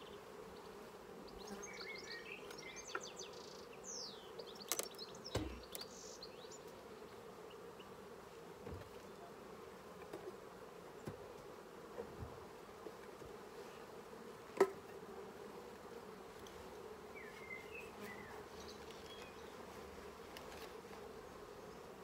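Steady hum of honeybees swarming over an open hive, with a few short knocks and one sharp click a little past halfway as the heavy honey-filled box is handled.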